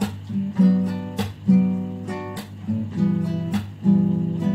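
Acoustic guitar strummed, chords played with sharp strokes about twice a second and left ringing.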